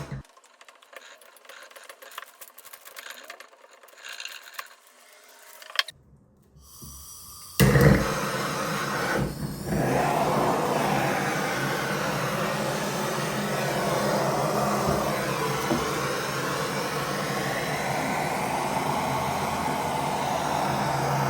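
Faint scratching and handling noises, then about eight seconds in an electric power tool starts abruptly and runs steadily.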